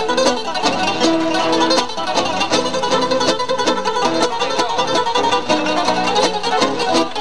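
Two acoustic guitars playing an instrumental piece together, a quick plucked melody over a plucked accompaniment.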